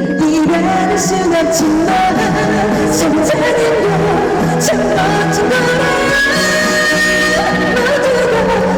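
Live trot song over a loudspeaker system: a melody with vibrato over a steady backing-track beat.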